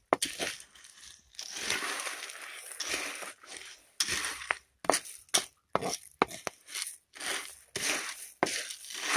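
Roasting coffee beans rattling and scraping against a clay roasting pan as a wooden spatula stirs them, in repeated irregular strokes with sharp clicks among them.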